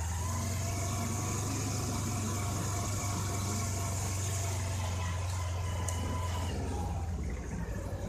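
Motorcycle engine running steadily while riding, its note easing off near the end.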